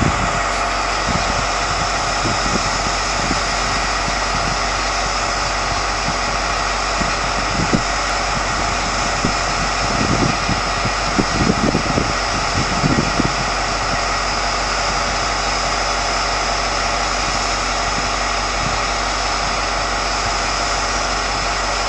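Diesel engine of locomotive D.100 103 idling steadily after start-up. A few short low bumps come about ten to thirteen seconds in.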